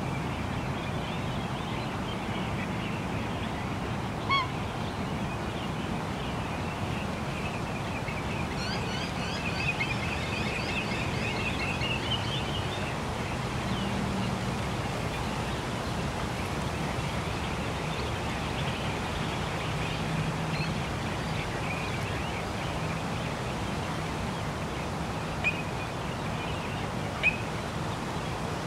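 Birds calling by a lake over a steady low hum of distant city traffic. About a third of the way in comes a quick run of high, rising chirps, and there are a few short, sharp calls early and near the end.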